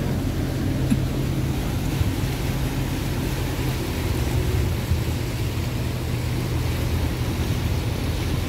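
Pontoon boat's outboard motor running steadily: a constant low hum over a hiss of wind and water.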